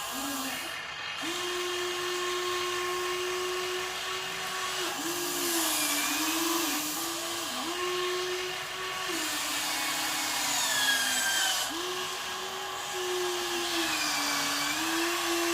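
Small electric motors and gearboxes of a radio-controlled toy construction vehicle whining, the pitch stepping up and down again and again as the motors start, stop and take load.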